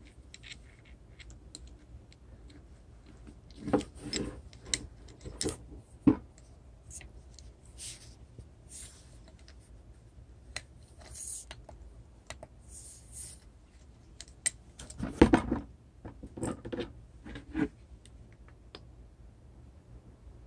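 Scattered clicks, taps and knocks of small hard objects being handled, loudest in two clusters about four seconds in and about fifteen seconds in.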